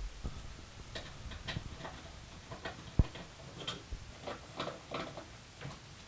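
Screwdriver backing out the two screws that hold a PC case's side panel: a run of small irregular clicks and ticks, with one sharper knock about three seconds in.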